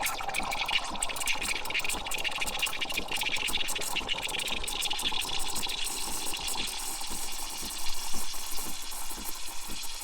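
Steam wand of a Breville BES870XL espresso machine hissing steadily as it steams and froths milk.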